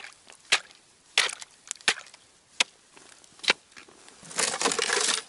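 Five or so sharp knocks and crunches of ice and packed snow as an ice chisel and fishing gear are handled on lake ice, then a rustling scrape about four seconds in.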